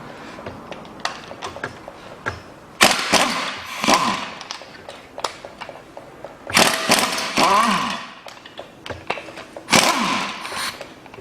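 A battery-powered wrench with a 12 mm socket spinning out the water pump's bolts: three short runs of the motor, each swooping in pitch as it speeds up and slows. Light clicks of tools come between the runs.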